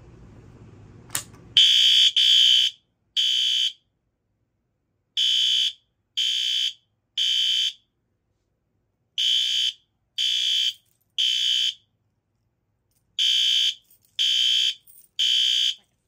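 A Fire-Lite BG-12L pull station is pulled with a click about a second in, setting off a System Sensor SpectrAlert Advance P2R horn strobe. The horn sounds loud electronic blasts in the temporal-3 evacuation pattern: three short blasts, then a pause, repeated four times.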